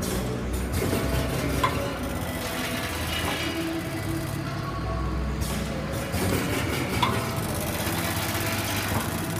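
Snack packing machine's feeder bowls running, a steady mechanical hum with a clatter of peanuts and snack pieces, and two sharp clicks.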